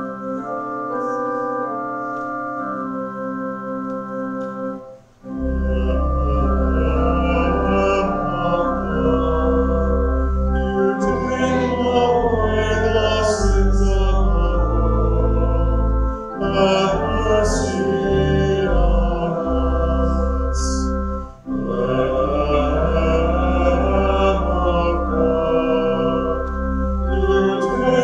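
Church organ playing sustained chords, then from about five seconds in a heavy pedal bass comes in and voices sing with the organ, pausing briefly between phrases twice.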